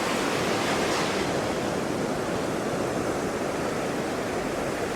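Ocean surf washing steadily, an even rushing noise with no breaks or distinct crashes.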